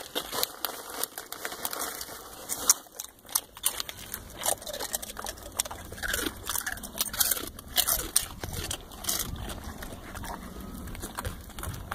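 Dogs crunching and chewing chips: a run of short, crisp crunches at an uneven pace.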